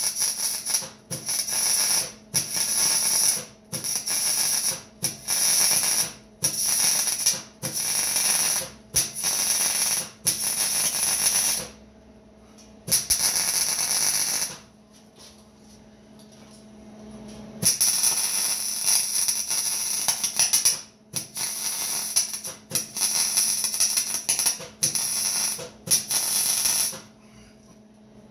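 Electric welding in a run of short crackling bursts of about a second each, with brief breaks between them and a longer break about halfway through, typical of welding steel frame pieces bead by bead. A steady low hum runs underneath.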